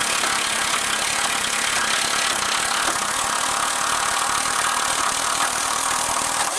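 A motor-driven tool or machine running steadily with a loud, dense whirring hiss, then cutting off near the end and winding down in pitch.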